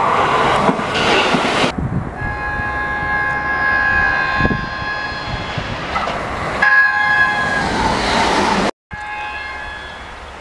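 Horn of an orange JR Kyushu 783 series Huis Ten Bosch express, sounded in long held blasts as the train runs past, over the rumble of wheels on rail. The sound breaks off abruptly twice where separate recordings are spliced together, and the horn is heard more faintly after the last break.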